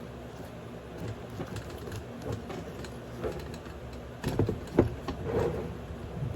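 Handling of military webbing straps and kit: rustling and small clicks, with a cluster of louder knocks and rattles about four to five seconds in.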